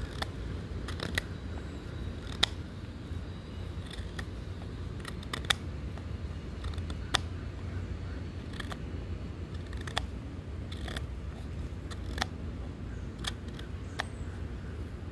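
Pocket knife blade whittling a wooden stick: irregular sharp clicks and snaps as the blade bites into the wood, over a low steady rumble.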